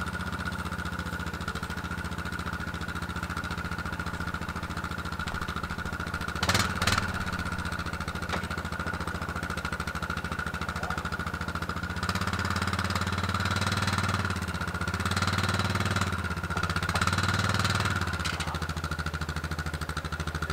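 A motor vehicle's engine running steadily, with a brief clatter about six and a half seconds in. From about twelve seconds in, the engine note gets a little louder and wavers up and down.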